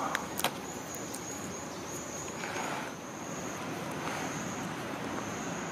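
Faint, steady high-pitched buzz of distant cicadas over outdoor background noise, with a few light clicks in the first half-second as the metal mechanical pencil is picked up.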